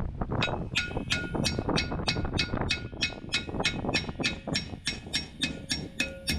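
Ball-peen hammer striking a seized rear brake drum on a 1984 Ford LTD Crown Victoria: a rapid, even run of ringing metallic blows, about three to four a second, starting about half a second in. The drum is stuck on and is being knocked to break it loose.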